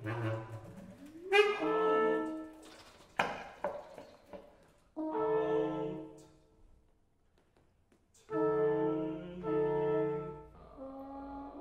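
Live contemporary chamber music with brass: sharp attacks and an upward slide in the first two seconds, then two held chords, about five and eight seconds in, with a pause of near silence between them.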